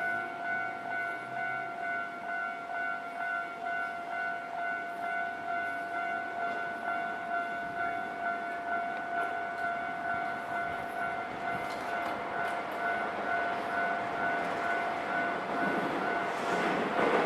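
Japanese railway level-crossing warning bell ringing in a steady, evenly repeating electronic ding. From about halfway through, an approaching train's rumble builds and grows loud near the end.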